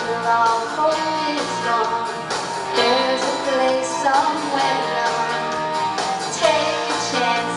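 A woman singing a solo into a microphone, with musical accompaniment.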